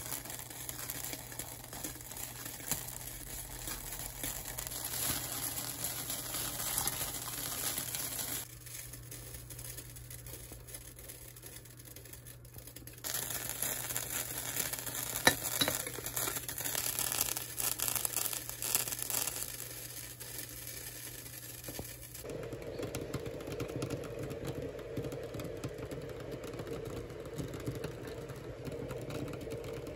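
Water heating in a glass kettle with dried butterbur roots on an electric hob, giving a crackling, sizzling hiss. For the last third it is a steadier bubbling as the water comes to a hard boil.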